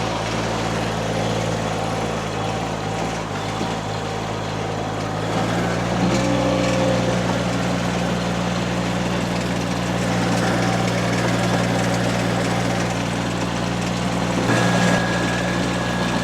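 Derette V1000 mini skid steer's engine running steadily, with its pitch and loudness stepping up about six seconds in as it is throttled up and driven, and a brief change again near the end.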